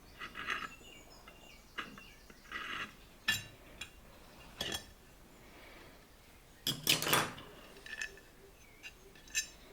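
Compass point scratching across a metal plate as a circle and an arc are scribed, with scattered metallic clicks and taps; the loudest cluster of clicks comes around the middle.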